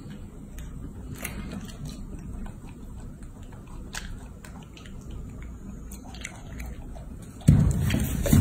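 Baby macaque biting and chewing a piece of peach, with faint scattered crunching clicks. About a second before the end comes a sudden louder jumble of thumps and rustling as the monkey scrambles down off the piglet's back.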